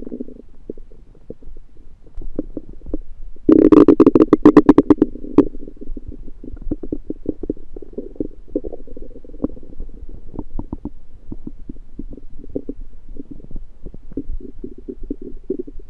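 Human stomach gurgling and rumbling, recorded up close: a loud bubbling, crackling gurgle about three and a half seconds in that lasts about two seconds, then quieter runs of bubbly gurgles and small pops. The uploader puts the noises down to food he thinks was undercooked.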